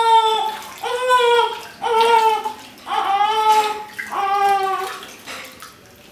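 Newborn baby crying in short high wails about once a second, fading out near the end, while water splashes in the small bath tub she is being washed in.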